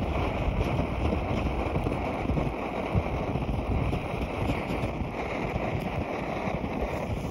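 Lanshan multi-fuel camp stove burning on liquid fuel with a steady rushing roar, mixed with wind buffeting the microphone.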